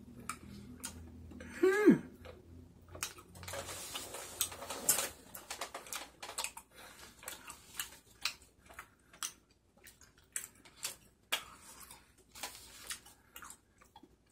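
Close-up eating sounds: a person chewing chewy tteokbokki rice cakes, with scattered wet mouth clicks and a plastic fork scraping and tapping in a paper cup. A brief voiced "mm" falling in pitch comes about two seconds in.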